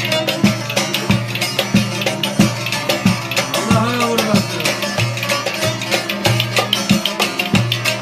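Instrumental passage of a Turkish folk song: a steady drum beat about every two-thirds of a second under a melody instrument, with no singing.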